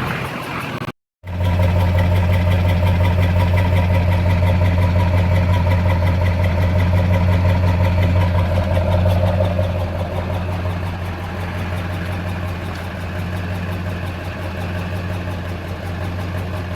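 LB7 Duramax 6.6-litre V8 diesel idling steadily with a stuck injector, partway through an injector-cleaning treatment. The sound cuts out briefly about a second in and is a little quieter from about ten seconds in.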